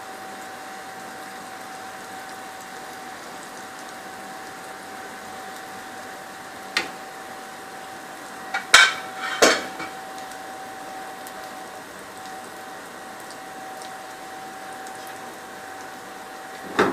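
Metal clinks against a frying pan: one sharp knock about seven seconds in, then a cluster of louder ringing clinks around nine seconds. Under them runs a steady soft hiss with a faint hum while a pancake cooks on a low flame.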